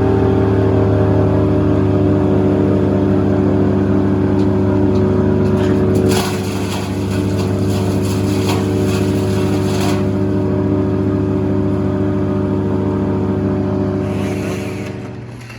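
An engine running steadily at one constant speed, with a stretch of crackling and rattling from about six to ten seconds in; the engine fades away near the end.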